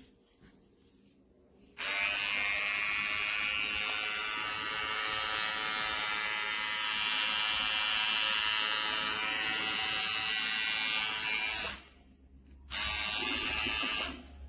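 KEMEI 2299 cordless hair trimmer switched on and running with a steady buzz for about ten seconds, then switched off, then run again briefly near the end.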